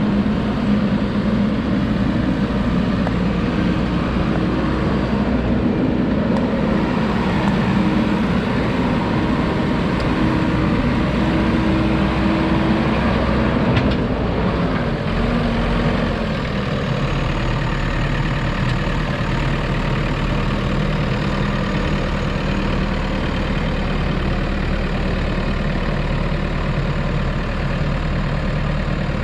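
JCB 3DX Super backhoe loader's diesel engine running steadily, its note dropping a little about halfway through and settling at a lower, steady speed.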